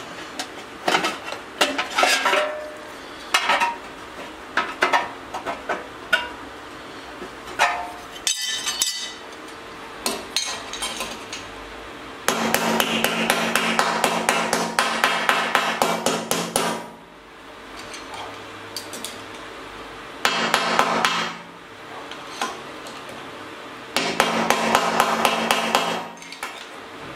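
Rapid metal-on-metal hammering of a small sheet-steel patch, knocking it into shape to fit a cutout in a motorcycle petrol tank. The hammering comes in three spells: about twelve seconds in for some four seconds, briefly about twenty seconds in, and again near the end. Before that there are light clinks and taps as the steel patches are handled and tried in the tank.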